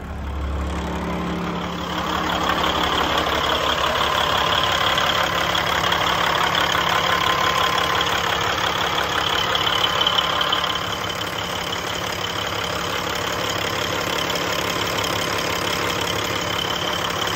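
Heavy-duty diesel engine of a Peterbilt 389 truck idling steadily, heard close up at the open engine bay, with a faint steady whine over the engine's running. It gets louder about two seconds in and eases slightly past the middle.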